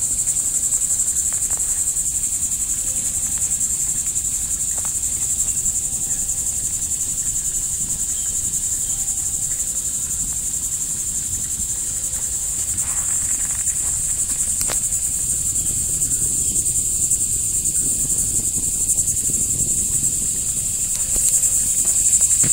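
Steady, unbroken chorus of insects (crickets or cicadas) buzzing high-pitched, with a few faint clicks that may be crackles from the wood fire burning in the log.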